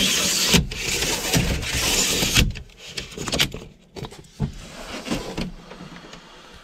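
Remis pleated windscreen blind being pulled shut: a loud sliding rush of pleated fabric running along its rails for about two and a half seconds, followed by a few quieter clicks and knocks as it is drawn fully across.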